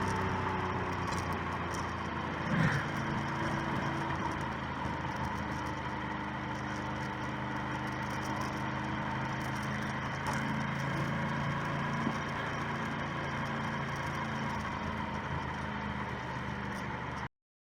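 Motorcycle engine running steadily under wind and road noise, its pitch dropping in the first second as it slows, then holding even. The sound cuts off abruptly near the end.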